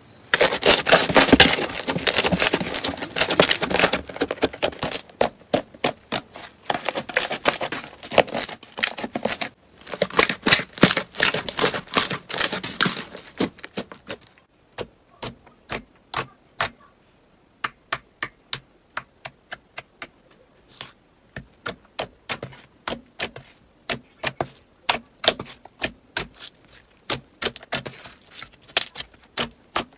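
Slime being squeezed, pressed and stretched by hand, its trapped air bubbles popping: a dense run of quick clicks and crackles that breaks off briefly just before ten seconds, then gives way at about fourteen seconds to sparser single pops.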